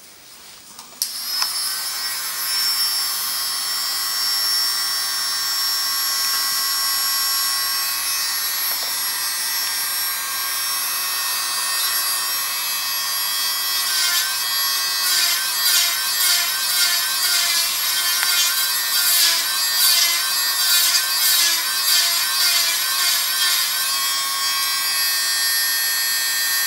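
Electric podiatry nail drill with a burr starting up about a second in and running with a steady high whine, smoothing off freshly cut toenails. From about halfway its pitch dips and wavers over and over as the burr is pressed onto the nail and lifted off.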